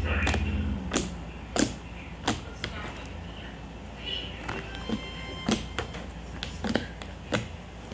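Very sticky fluffy slime being worked by hand, giving off short, sharp pops and snaps roughly once or twice a second as it is stretched and squeezed.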